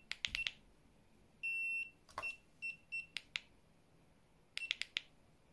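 Ninebot scooter dashboard buzzer beeping: one longer beep about a second and a half in, then three short beeps, mixed with the small plastic clicks of the dashboard power button being pressed. The scooter has just powered up on a newly fitted replacement controller.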